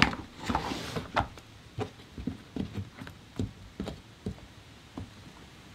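Hard shell of a whole cooked lobster being handled: a sharp crack at the start, then irregular light clicks and taps, about two a second.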